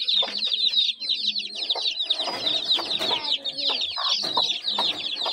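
A brood of chicks peeping rapidly and without a break in high-pitched falling chirps, with a mother hen clucking beneath them.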